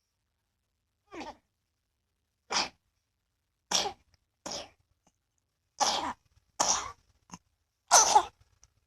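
A person coughing in a series of about eight short separate coughs, roughly one every second. The coughs grow louder toward the end, with the last and loudest ones coming close together.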